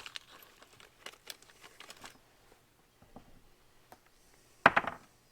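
Small metal clicks and taps of bolts and hand tools being handled while fitting a pump, with one louder short rushing noise near the end.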